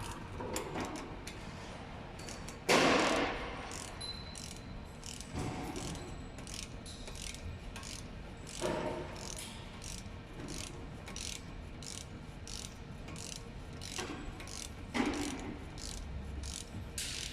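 A ratchet wrench clicking in quick strokes as a nut on a car's front suspension strut is worked, with three louder metal knocks spread through it.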